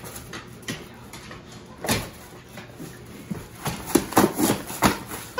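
Plastic shopping bag crinkling and rustling as toys are pulled out of it: a sharp crackle about two seconds in, then a run of crackles near the end.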